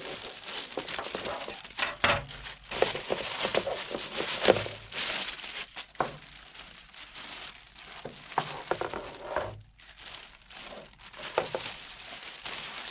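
Packaging being opened and unwrapped by hand to take out a new plastic motorcycle air scoop: irregular crinkling and rustling with scattered clicks and knocks.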